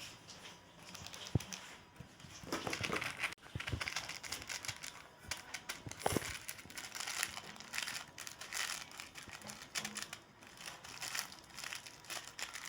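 Crinkly snack and chocolate wrappers being handled and crumpled close up, in repeated bursts of crackling rustle with a few sharp clicks.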